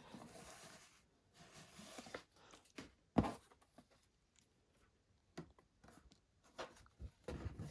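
Faint rustling of a ribbon being untied and pulled off a cardboard gift box, with a soft knock about three seconds in and a few light clicks and taps near the end.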